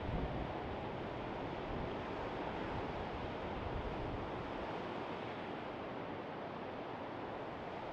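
Sea surf rolling onto a sandy beach, a steady wash, with wind buffeting the microphone in low gusts that ease off about halfway through.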